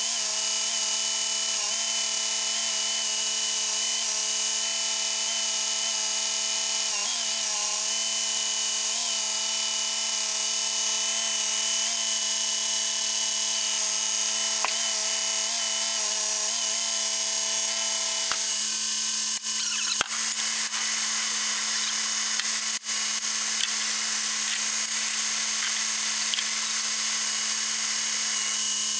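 Crane truck's engine and hydraulic pump running steadily with a high whine while the knuckle-boom crane lifts and swings a heavy milling machine. The tone shifts a little over halfway through, and a few sharp clicks come near the end.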